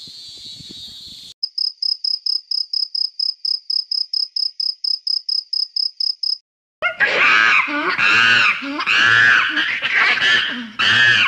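A cricket chirping in a steady run of short high chirps, about five a second, which stops about six seconds in. After a brief pause a macaque gives a series of loud calls that rise and fall in pitch.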